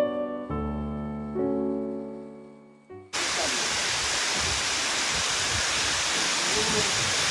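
Piano notes fading away, then about three seconds in an abrupt cut to the steady hiss of heavy rain.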